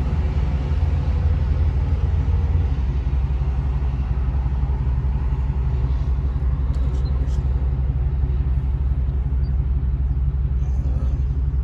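2006 Chevrolet Impala SS's LS4 V8 idling steadily, a deep even drone with no change in revs.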